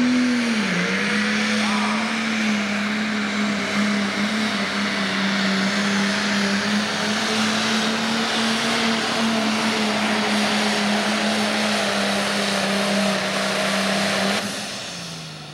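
Pro Stock pulling tractor's turbocharged diesel engine running flat out under load as it drags a weight-transfer sled. The pitch dips briefly about a second in, then holds steady. Near the end the engine backs off and its sound falls away as the pull finishes.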